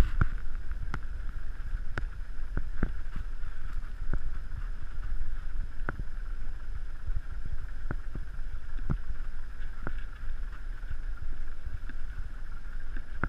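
Wind buffeting the microphone aboard a small boat, a low rumble under a steady hiss, with small sharp knocks about once a second.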